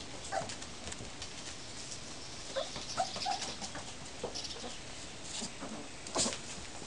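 Border collie puppies giving small whimpers and yips now and then, with scratching and rustling of paws and toys on the floor. A louder scrape or rustle comes about six seconds in.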